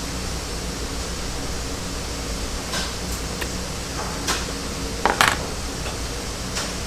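Small sharp clicks of hand tools working the metal zipper stops off a zipper, about half a dozen, the loudest a quick double click about five seconds in, over a steady background hiss.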